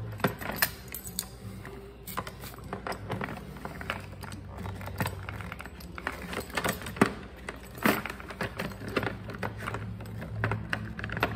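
Aviation tin snips trimming a black plastic cover, heard as a series of irregular sharp snips and clicks. A low steady hum runs underneath.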